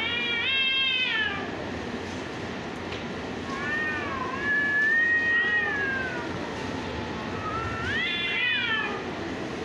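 Calico cats caterwauling in a fighting standoff: three drawn-out yowls that rise and fall in pitch, the longest in the middle, a threat display between rival cats.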